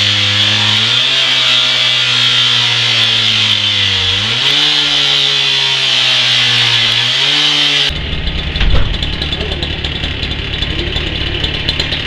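Petrol cut-off saw (power cutter) running flat out with its abrasive disc grinding through a steel door, a hissing scream over the engine note. The engine pitch dips under load about a second in and again around four seconds in, then recovers. About eight seconds in the engine note stops and gives way to a rougher clatter, with a loud bang a second later.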